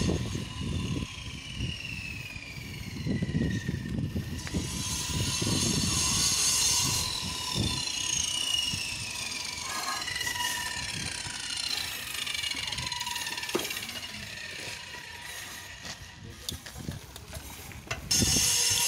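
Bicycle freewheel ticking as the bike coasts, the ratchet's clicking slowing so that its pitch slides downward, over the rumble of tyres on dirt. A louder rushing noise comes in near the end.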